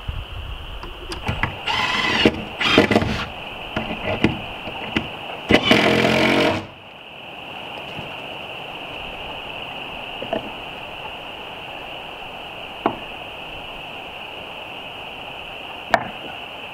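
Cordless drill driving screws into wooden siding battens in several short whirring bursts, the last about a second long. Then three single light knocks against the wall over a steady high-pitched hiss.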